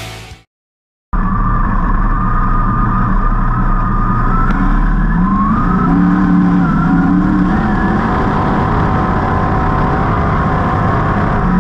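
Rock music fades out in the first half second. After a short gap of silence, a 305 sprint car's 305-cubic-inch V8 runs loudly on the dirt track, heard from the cockpit. Its note rises and falls with the throttle.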